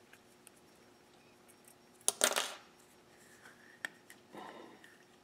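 Small steel parts clinking: the spring-loaded detent pin and its spring from a lathe's power-feed mechanism handled at a bench. A sharp metallic click with a brief rattle about two seconds in is the loudest, followed by light ticks and a softer scraping rattle near the end.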